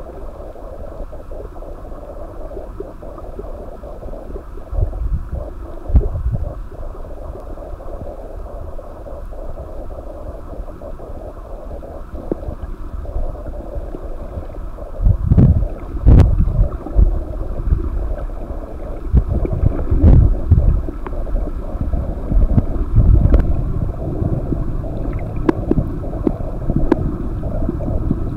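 Muffled underwater water noise picked up by a camera in its housing: a steady gurgling hiss, with irregular low thumps and rumbles from about halfway through.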